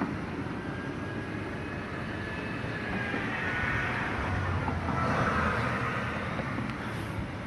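Road traffic passing: a steady rumble and tyre noise that swells twice as vehicles go by.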